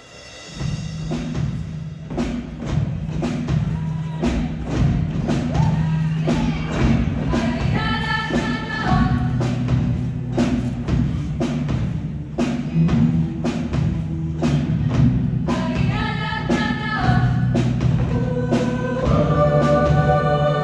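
Music with a steady beat of drum hits under sustained tones, with choir-like voices rising in around 8 and 16 seconds in.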